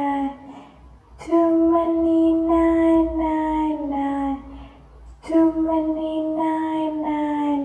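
A high, child-like voice singing the word "nights" over and over on a held note, in two long phrases. Each phrase sags slightly in pitch at its end.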